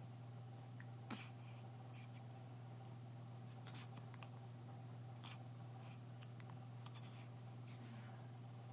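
A newborn baby's hiccups: a few faint, short, sharp hiccups a second or two apart, the clearest about a second in, over a steady low hum.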